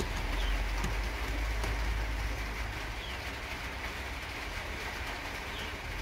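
Racing pigeons calling in a loft, with a few faint short high calls, over a steady low rumble.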